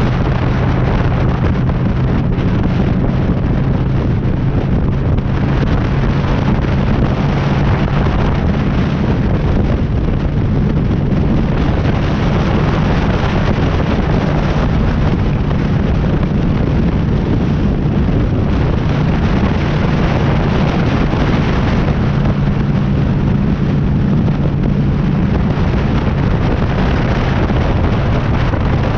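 Honda Shadow cruiser motorcycle's V-twin engine running steadily on the move, under heavy wind noise on the microphone.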